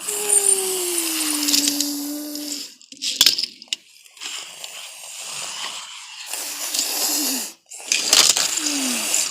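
Toy race cars being run along a track: a hissing rolling noise with an engine-like whine that falls in pitch over the first few seconds and again briefly near the end. There are a few sharp clicks about three seconds in.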